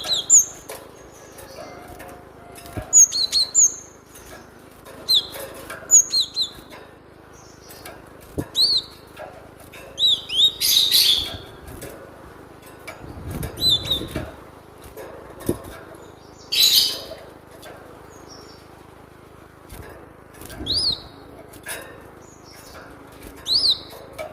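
Cinereous tit (gelatik batu) calling: short, sharp, high whistled chirps in quick clusters every second or two, with two brief harsher rasping bursts about ten and sixteen seconds in.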